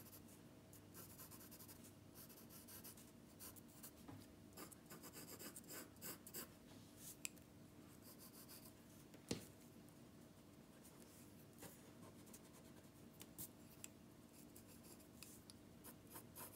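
Pencil lead scratching faintly across graph paper as sketch lines are drawn in short, intermittent strokes, with a couple of light ticks along the way.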